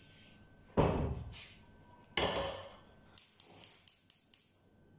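Cookware knocking in a kitchen: two heavy knocks like a frying pan being set down, then a quick run of about seven sharp, high ticks.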